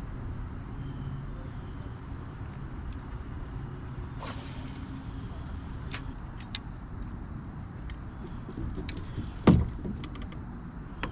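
Handling noise while fishing from a kayak: a steady low rumble, a short swish about four seconds in, a few light clicks around six seconds, and one hard thump about nine and a half seconds in.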